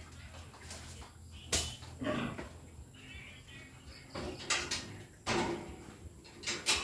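Newborn piglets nursing at a sow in a farrowing crate: about six short, sharp squeaks and grunts spread over a few seconds.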